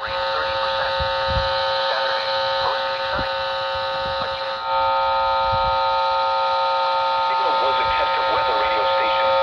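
A steady electrical buzzing hum made of several fixed tones, stepping up louder about five seconds in.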